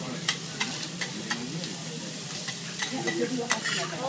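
Bean sprouts and greens sizzling on a hot teppanyaki steel griddle. Several sharp clicks sound as metal spatulas strike and scrape the plate while the vegetables are turned.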